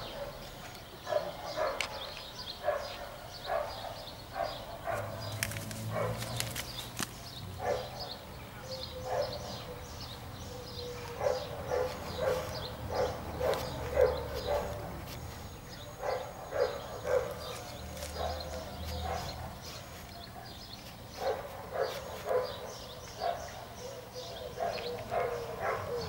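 An animal calling with short, sharp yips, many times over in bursts of several calls, with gaps of a few seconds between bursts.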